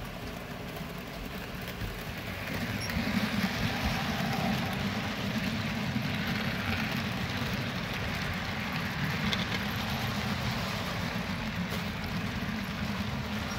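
HO scale model freight cars rolling past on the layout's track, wheels running on the rails with a steady rumble that grows louder about two and a half seconds in as the train reaches the camera.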